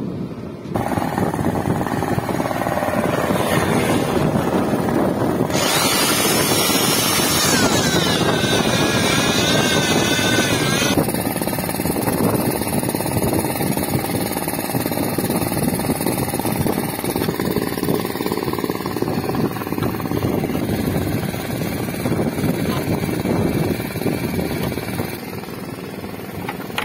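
A machine running steadily with a rough drone, with a high wavering whine from about six to eleven seconds in.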